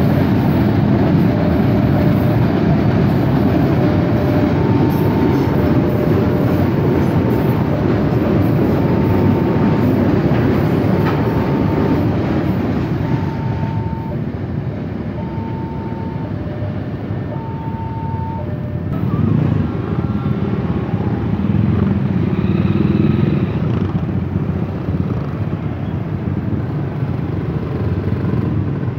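Tank wagons of a freight train rumbling over the rails, with a level-crossing warning signal sounding two alternating notes over and over. The warning signal stops about two-thirds of the way through. Motorcycle engines then run and rev as traffic waits at the crossing.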